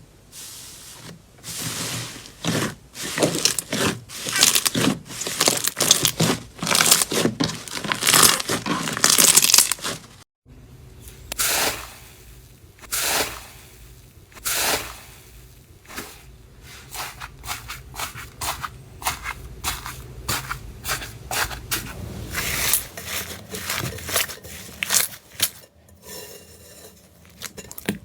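Slime being pressed and worked by hand, giving dense crackling and popping. About ten seconds in a cut leads to sparser, softer pops.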